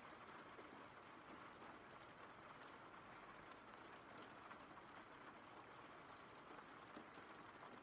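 Faint, steady rain: an even hiss of falling rain with a few small drop ticks.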